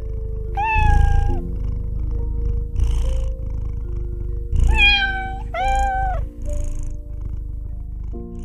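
Domestic cat purring with a continuous low rumble, meowing once about half a second in and twice in quick succession around five seconds in.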